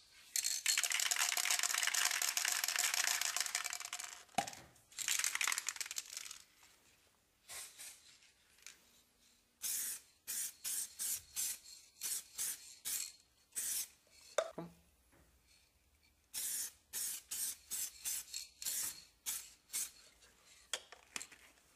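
Aerosol spray can spraying onto an alloy wheel rim: one long hiss of about four seconds, a shorter second spray, then a run of short puffs, about two a second.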